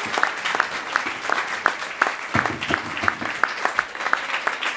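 A small audience applauding at the end of an acoustic set, with the separate claps of individual listeners distinct from one another.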